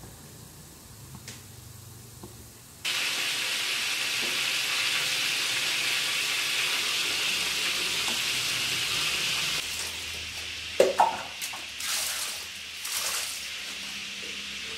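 A pot of chilies, shallots and garlic at a hard boil on a gas stove: a steady, loud hiss that starts suddenly about three seconds in and stops near ten seconds. A few metal clanks and knocks of a spoon and pot follow.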